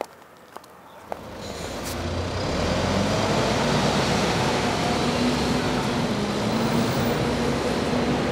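High heels click on pavement, three steps in the first second. Then road traffic noise swells over a couple of seconds into a steady loud rumble with a low engine hum, like a heavy vehicle running close by.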